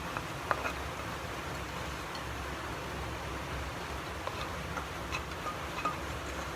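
Food frying in oil in a wok: a steady sizzle with scattered small clicks and pops.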